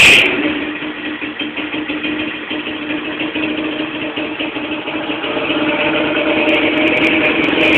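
Engine with a modified pop-and-crackle exhaust: a loud rev cuts off just after the start, then it idles with a steady, pulsing rumble that grows louder toward the end, with a few light crackles near the end.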